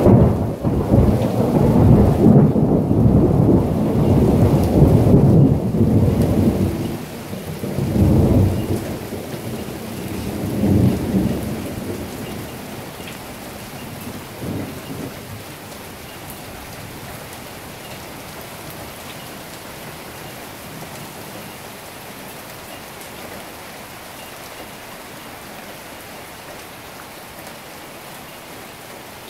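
Thunder rolling loudly in a long low rumble, then two weaker rolls that die away before the halfway point. Under it, steady heavy rain, which carries on alone as an even hiss for the rest.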